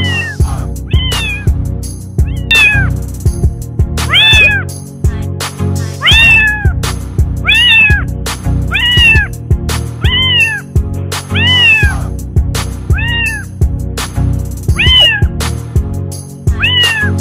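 A cat meowing over and over, about once a second, each meow rising and then falling in pitch. Background music with a steady beat plays underneath.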